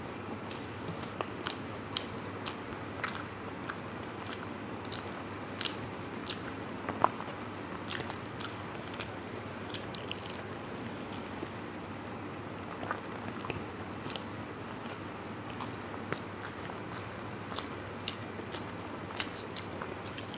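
Close-up eating sounds of a mouthful of rice and curry: chewing with frequent short, wet mouth clicks and lip smacks at irregular spacing over a steady hiss, one click louder than the rest about seven seconds in.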